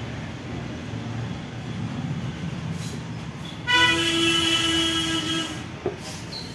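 A horn sounds for about two seconds, starting a little past halfway, over a steady low rumble.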